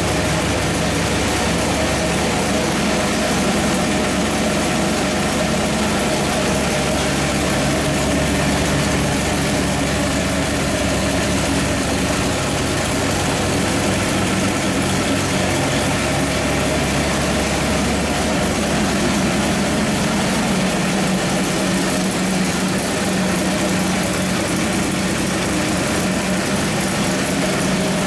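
434 cubic-inch small-block Chevy V8 with a Comp Cams hydraulic roller cam and a Quick Fuel Q-850 carburetor, running on an engine dyno at a steady idle, with no revving.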